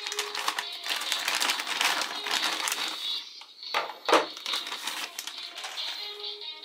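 Thin clear plastic toy bags crinkling and rustling as they are handled and a toy is pulled out, with a couple of sharper, louder rustles about four seconds in.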